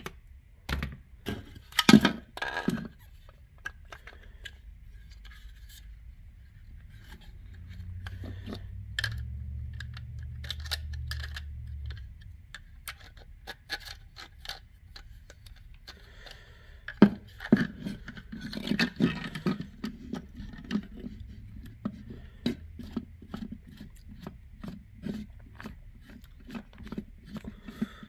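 Plastic parts of a Stanley garage door opener's worm-gear housing being handled and fitted together by hand on a workbench: scattered clicks, knocks and scraping. The loudest knocks come about two seconds in and again past the middle.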